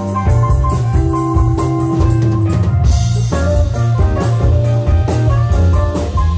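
Live band music: a saxophone plays the melody over drum kit, bass guitar, electric guitar and keyboards, with a steady beat. About a second in, one note is held for a second and a half.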